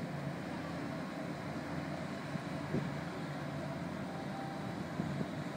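Car ferry's engines running with a steady low drone, with two brief knocks, about three seconds in and near the end.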